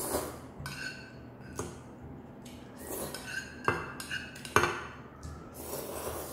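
Noodles being slurped, with wooden chopsticks clinking against a small pan several times.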